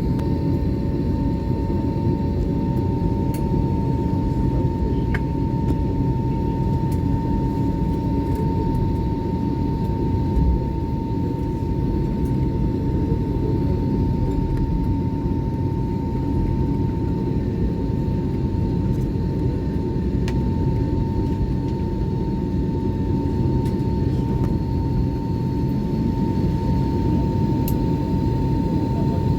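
Airliner cabin noise: a steady low rumble with a constant high whine running through it.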